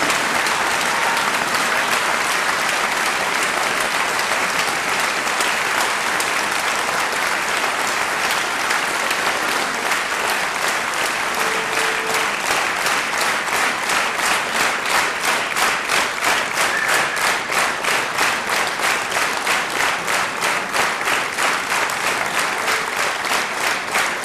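Audience applauding, the scattered clapping turning about halfway through into rhythmic clapping in unison, about two to three claps a second.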